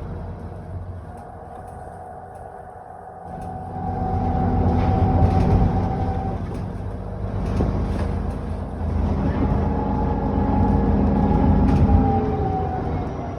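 ADL Enviro400 double-decker bus heard from on board, its engine running quietly for the first few seconds and then pulling harder and louder from about three and a half seconds in. A steady high whine, the bus's 'hoover' sound, rides over the engine, then fades and falls in pitch near the end as the bus eases off.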